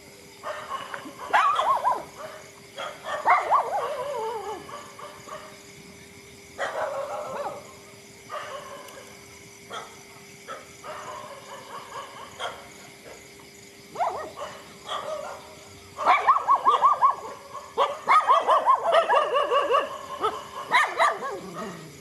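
Dogs barking in bouts, with a long run of rapid barks in the last quarter.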